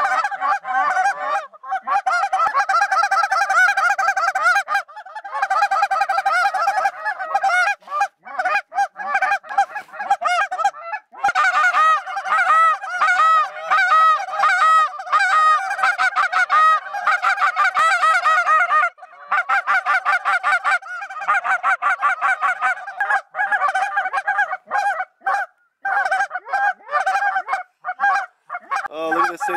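Loud, near-constant goose honking, many calls overlapping in rapid runs with a few short breaks.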